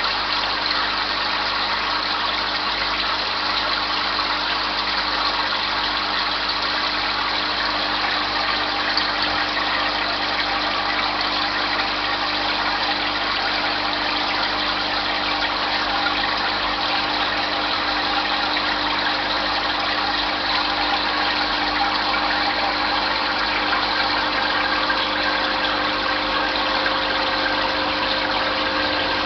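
Aquarium pump running with a steady hum and hiss.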